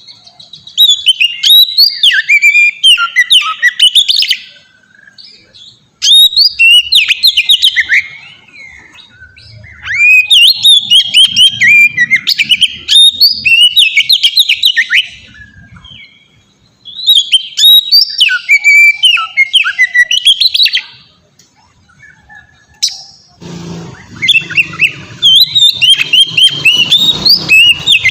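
Oriental magpie-robin (kacer) singing a loud, full-voiced song (ngeplong) in five bursts of rapid, varied whistled phrases, separated by pauses of a second or two. About 23 seconds in, a low rumble of background noise comes up under the song.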